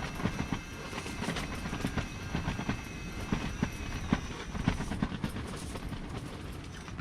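Small electric wakasagi reel (Daiwa Crystia CRT+) whining as its motor winds line, over repeated rapid knocks and clatter; the whine stops about five seconds in while the knocking carries on.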